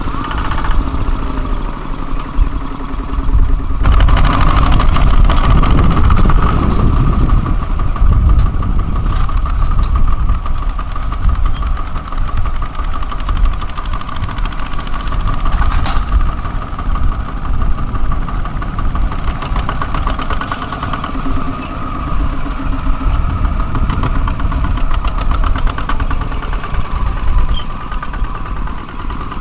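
Kubota single-cylinder diesel engines of two-wheel walking tractors chugging as they pull rice-laden trailers, growing abruptly louder about four seconds in. A single sharp click sounds about halfway through.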